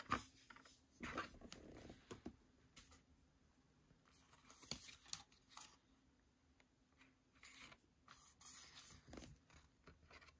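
Faint handling of stiff paper and card: photocards and paper inserts being picked up, slid and set down, in short scattered rustles with a few light taps.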